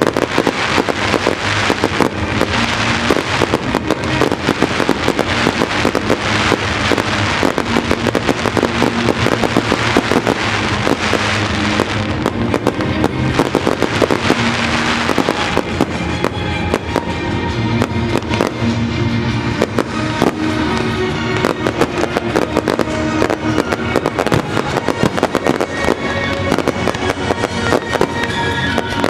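Fireworks display with rapid bangs and dense crackling over loud music. The crackle is thickest in the first half, and the music comes forward about halfway through.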